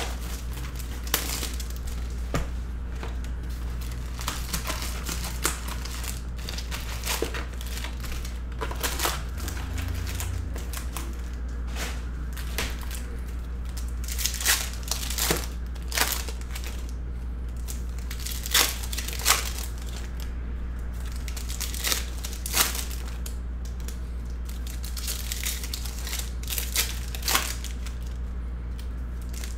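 Plastic wrap and foil trading-card pack wrappers crinkling and tearing as Bowman University Chrome packs are ripped open, in many short sharp crackles over a steady low hum.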